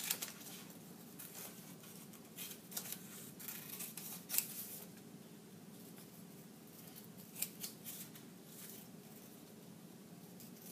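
Scissors cutting through paper: short runs of snips with pauses between them.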